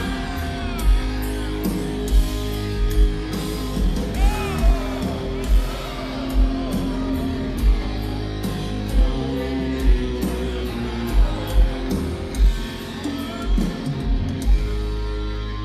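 A live rock band playing loud, with distorted electric guitar over heavy drum hits that land about once a second.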